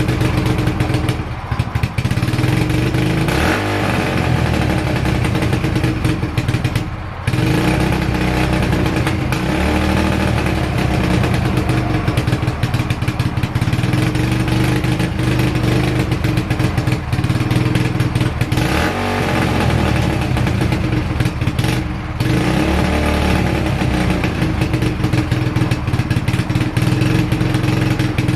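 Kawasaki KLX110's small single-cylinder four-stroke engine running steadily on its first start-up with a fresh cylinder head, with a few brief dips in engine sound.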